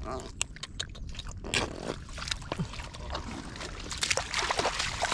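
Shallow muddy water sloshing and splashing as a person wades and grabs for catfish by hand, with scattered small clicks and knocks at first and the splashing busiest near the end.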